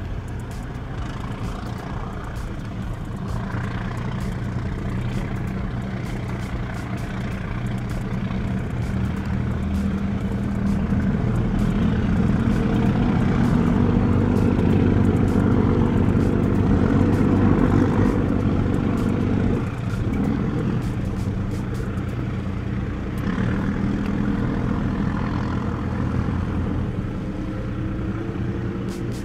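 Engines of a high-speed passenger ferry running as it manoeuvres, a steady low drone of several tones. It grows louder toward the middle and eases off a little after about twenty seconds.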